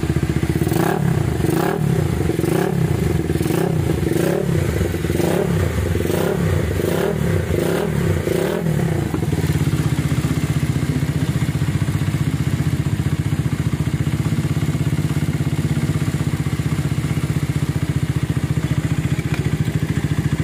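Minerva R150 X-Rod motorcycle engine blipped about ten times, a little over once a second, then settling to a steady idle about nine seconds in. Freshly rebuilt with a new piston and rings, it runs smooth and cool-sounding ("adem").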